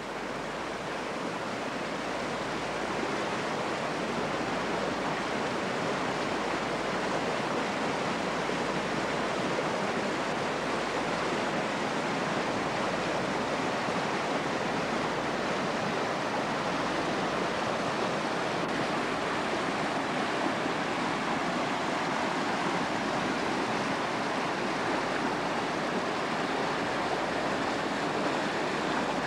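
Mountain creek rushing in white water between snow banks: a steady rush of water that grows a little louder over the first few seconds, then holds even.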